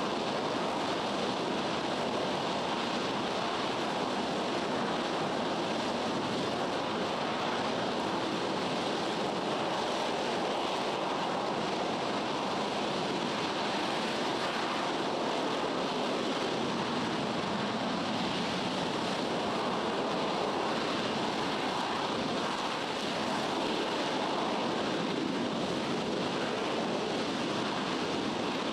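RS-25 liquid-fuel rocket engine firing on a test stand: a steady, even rushing noise with no pitch.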